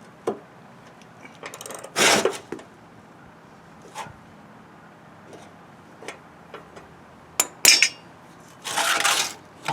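Steel tools clinking and scraping against a lawnmower deck and its blades: scattered sharp metallic knocks, with two short scraping bursts about two seconds in and near the end.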